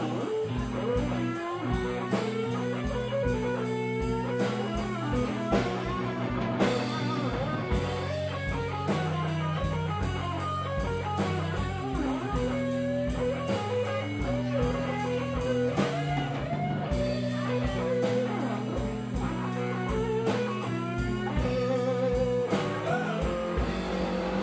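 Live blues band playing: an electric guitar solos with bent, wavering notes over bass and a drum kit keeping a steady beat.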